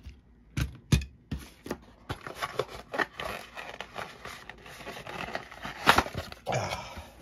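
Circuit boards and packaging being handled: a couple of sharp knocks as the board is set down on the mat, then rustling and rummaging through the box, with another sharp knock about six seconds in.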